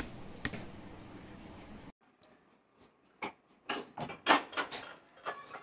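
Key and metal door latch being worked to unlock a door: a run of sharp clicks and rattles, loudest about four seconds in.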